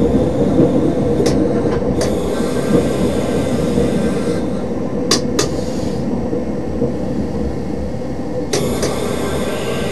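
Driver's-cab sound of a DB class 628 diesel railcar running slowly: steady engine and running noise with a humming tone, broken by a few sharp clicks. About eight and a half seconds in, a brighter hiss joins the running noise.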